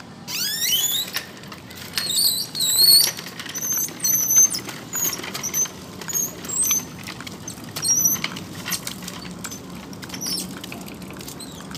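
Small birds chirping in short, high, quick notes, some sliding in pitch, scattered all through, over a faint steady hum.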